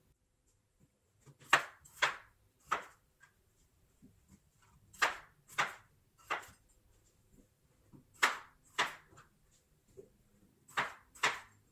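Chef's knife cutting baby potatoes into chunks on a wooden cutting board: sharp knocks of the blade striking the board, in quick runs of two or three about half a second apart with pauses between, about ten cuts in all.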